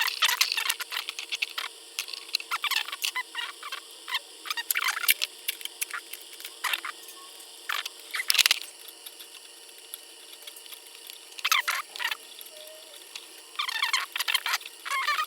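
A round file rasping in short, irregular strokes on a shiny metal part of a Hallicrafters S-38E receiver's dial drive. The filing roughens the part so the slipping dial string will grip it.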